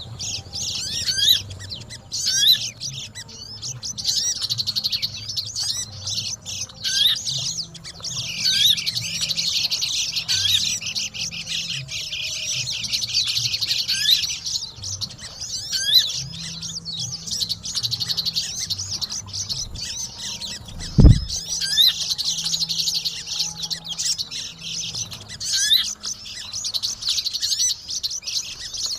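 Pleci (white-eyes) and sogon birds chattering, a dense, continuous run of rapid high chirps and twitters. A single loud low thump about two-thirds of the way through.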